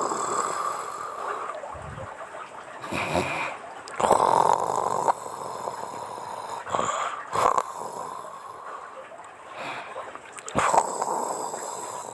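A woman snoring in her sleep: a run of breathy, rasping snores that swell and fade every few seconds.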